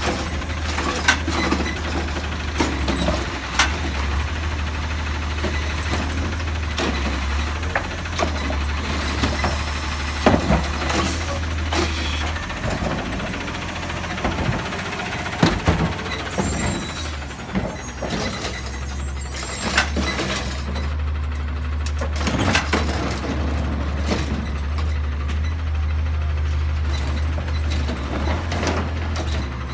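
CNG-powered Autocar automated side-loader garbage truck running, with a steady low engine hum under repeated clanks and clatters from its lifting arm and carts being emptied into the hopper. A high hiss of air comes in about sixteen seconds in.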